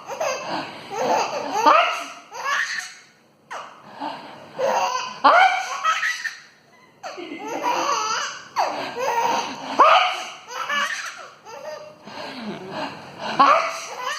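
A young child laughing hard in repeated fits, high-pitched and breathless, with short pauses between bursts.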